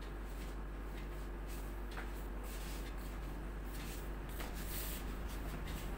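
Quiet room tone: a steady low hum with a few faint soft clicks and rustles.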